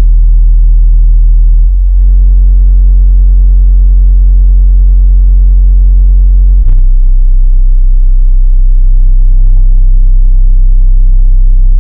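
Deaf Bonce Apocalypse SA-272 12-inch subwoofer playing a song's deep bass loudly inside a vehicle cabin. Long held low notes step to a new pitch about two seconds in and again around seven seconds.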